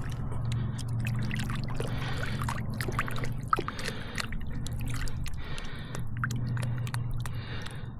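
Shallow lake water sloshing, trickling and dripping around a hand holding a largemouth bass under the surface as it is released, with small irregular splashes. A low steady hum runs underneath.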